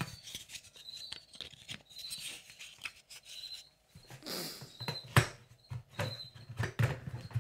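Hands rummaging through packaging and small instrument cases: scattered rustling and light clicks, a longer rustle about four seconds in, then one sharp click a second later.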